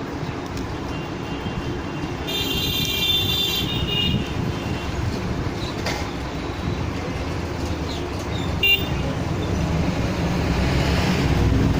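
Street traffic rumbling steadily, with a vehicle horn sounding for about a second and a half a little over two seconds in and a short toot later on.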